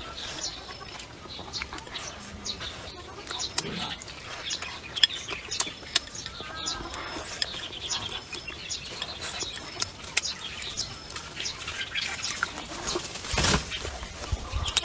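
Eating sounds: chewing and the clicks and taps of chopsticks against a bowl, irregular and scattered throughout, with small birds chirping in the background.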